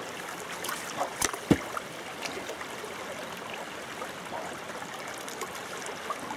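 Sespe Creek running steadily, a continuous rushing of flowing water. A few short sharp clicks or knocks come about a second in.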